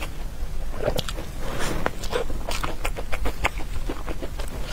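Close-miked eating sounds of chewing chocolate mille-crêpe cake: quick wet mouth clicks and smacks, several a second.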